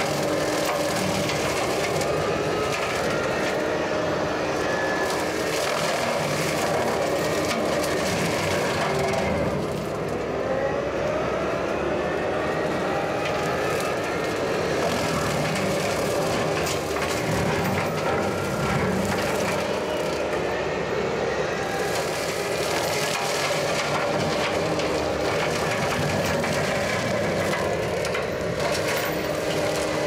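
Bobcat T770 skid steer's diesel engine running hard under load while its high-flow direct-drive brush mower shreds and mulches clumps of English buckthorn, with constant crunching and cracking of wood. The engine pitch dips and recovers at times as the blades bite.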